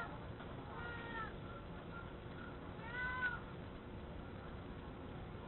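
A cat meowing twice, each call rising and falling in pitch, once about a second in and again about three seconds in, over a steady background hiss.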